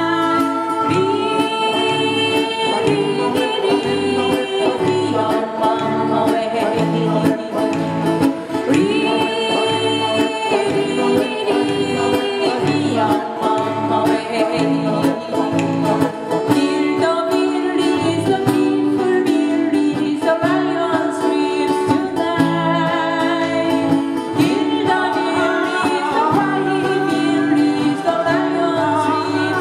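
Acoustic guitar band playing a song, several acoustic guitars strummed under voices singing into microphones, amplified through a small PA.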